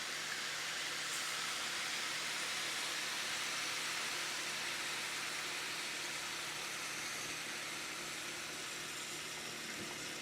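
Skillet of ground beef, carrot and cabbage stir fry sizzling steadily over the heat, with its sauce just added.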